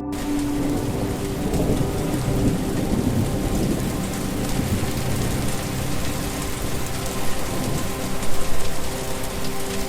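Steady heavy rain falling, with thunder rumbling low beneath it. The rain cuts in and out abruptly.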